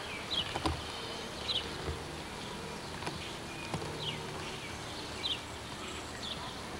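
Water from a rock fountain's spray jets rushing steadily, with short high chirps that slide down in pitch, about one a second.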